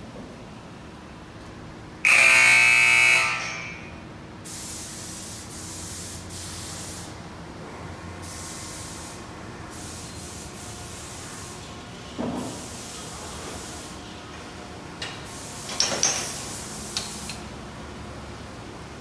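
A loud buzzer-like tone sounds for about a second and a half near the start. Then a hand-held air spray gun hisses in repeated bursts of a few seconds each as polish product is sprayed on, with a few knocks near the end.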